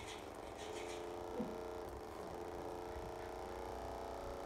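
Puppy mouthing a small metal tin toy: quick clusters of light rattling clicks in the first second. A faint steady hum runs underneath.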